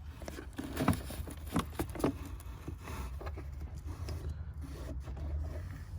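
Hands scraping and rubbing at the cabin air filter housing under the dashboard, with a few short sharp scrapes in the first two seconds and fainter rustling after, over a steady low hum.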